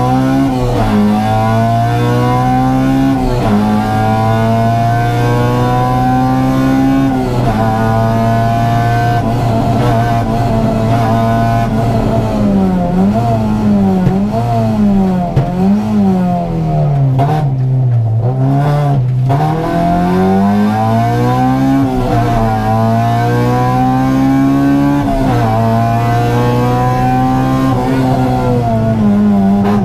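Honda Civic rally car's four-cylinder engine at full throttle, heard from inside the cabin: the revs climb and drop sharply at each upshift. Midway the driver lifts and the revs rise and fall repeatedly through the braking and downshifts, then the engine pulls up through the gears again.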